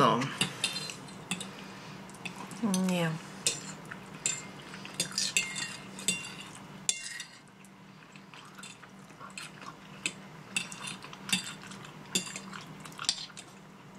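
Metal forks clinking and scraping on ceramic dinner plates as two people eat, in scattered irregular clicks. A brief murmured voice comes about three seconds in.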